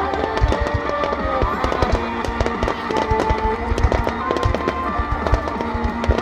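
Aerial fireworks going off in quick succession, frequent low booms and sharp crackles of bursting shells, over music with long held notes.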